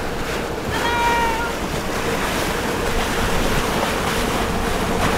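Water rushing and wind buffeting from a boat under way, over a steady engine hum. About a second in comes a short high-pitched call.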